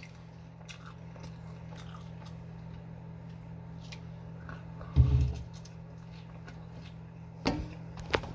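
A person chewing food, with faint mouth clicks over a steady low hum. A single low thump about five seconds in.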